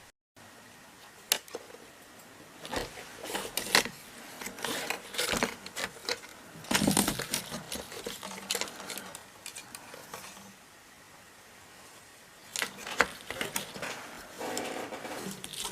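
Irregular handling noises: scattered clicks, taps and rustling, with a busier stretch in the middle and another near the end.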